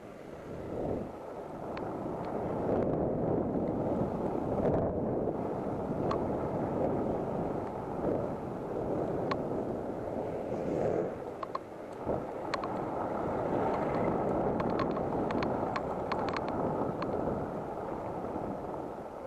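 Wind rushing over an action camera's microphone as a Teverun Blade GT electric scooter rides along a street, with a faint steady whine underneath. Scattered sharp ticks and rattles come through, most of them a few seconds before the end.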